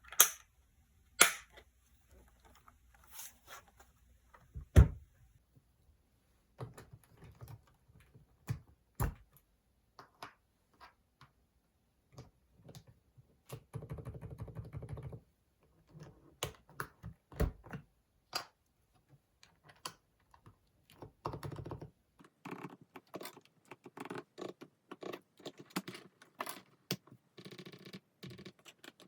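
Typing on an FL-ESPORTS CMK75 mechanical keyboard fitted with Kailh silent cream linear switches: irregular soft keystrokes with a few louder knocks in the first five seconds, a quick run of keys about halfway through, and steadier, denser typing in the last third.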